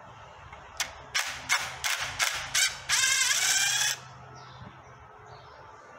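Cordless impact driver loosening a thermostat-housing fastener: several short trigger bursts of hammering, then a run of about a second with the motor whine rising as the fastener spins out.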